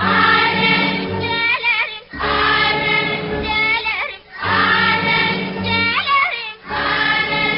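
Background music with singing voices, several voices together, in repeated phrases of about two seconds with short breaks between them.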